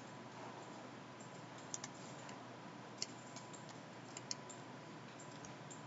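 A few scattered clicks from a computer mouse and keyboard, some in quick pairs, over a steady faint background hiss.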